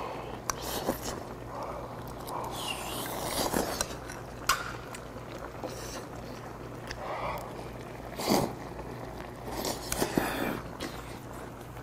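Close-up eating sounds: breathy blowing on a piece of hot chicken, then biting, chewing and quick sucking as it is taken off the chopsticks, with sharper sucks near the end.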